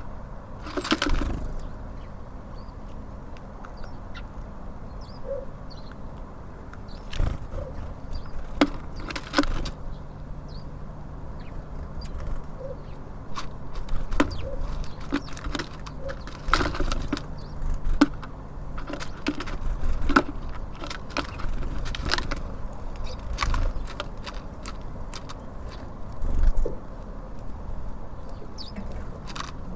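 Small birds at a feeder: irregular sharp knocks and clicks from pecking and landing, with short flutters of wings, over a steady low rumble.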